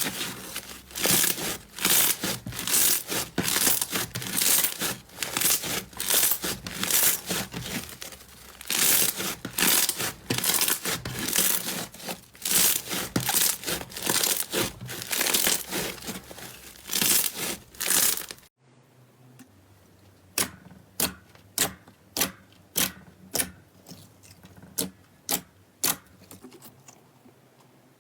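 Slime worked by hand, giving loud, dense crackling and popping. It cuts off suddenly partway through, and after the cut a quieter slime clip follows with sharp single pops about two a second.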